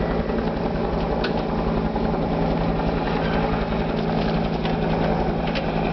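An engine running steadily at idle, a constant low hum, with a few light clicks over it.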